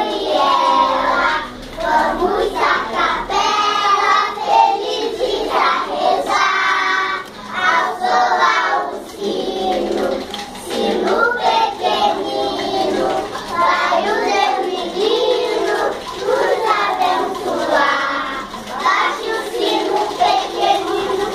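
A group of four-year-old children singing a song together.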